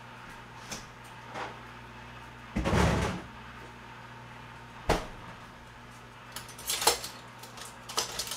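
Kitchen cupboard being opened and shut, with knocks and clatter: a loud rattling bang about three seconds in, a single sharp knock near five seconds, then a quick run of clicks and clatter near the end, over a steady low hum.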